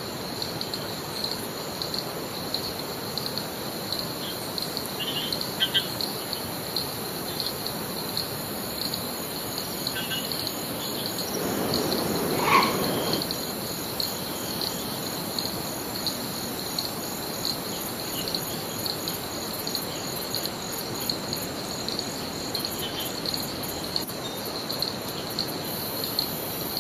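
Rainforest insects calling steadily, a high pulsing chorus, over a constant rush of river water. There is one brief louder sound about twelve seconds in.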